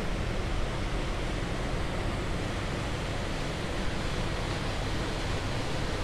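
Passenger ship under way on a lake, heard on board: a steady rush of water and wind over a low engine drone.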